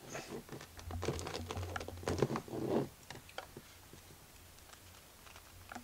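Rustling and light clicking as gloved hands turn an Invicta watch still wrapped in clear plastic film. The handling noise is busiest in the first three seconds, then drops to a few faint ticks.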